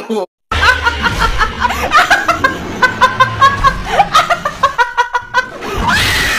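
Rapid pulsing laughter over a low beat, then a loud scream starting near the end.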